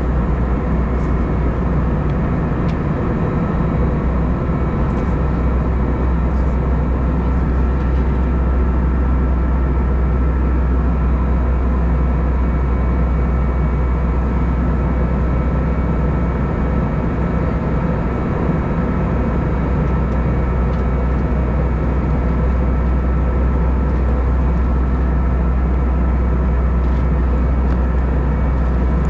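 Steady cabin noise of an Airbus A320 in flight: engine and airflow rumble, strongest in the deep low end, with a few faint steady tones above it.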